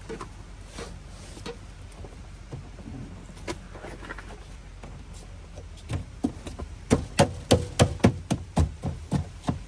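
BMW E90 interior door panel being knocked into place: a few scattered clicks, then from about six seconds in a quick run of sharp knocks, about three a second, as the panel is popped back onto the door.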